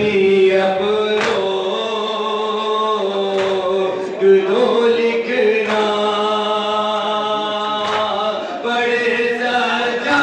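Men chanting a Shia nauha (lament) together into a microphone, in long held notes, with a sharp slap about every two seconds from chest-beating (matam).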